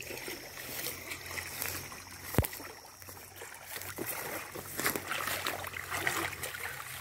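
Muddy water sloshing and splashing as a round fishing sieve is pushed and scooped through a shallow ditch, with one sharp knock about two and a half seconds in.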